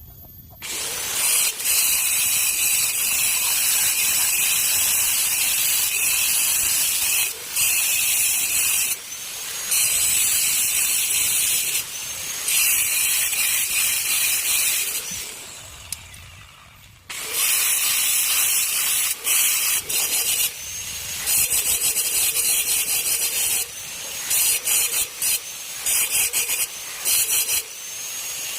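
Handheld electric power tool running at high speed, a high-pitched whine with hiss, worked in long stretches with brief pauses and then switched on and off in short bursts near the end.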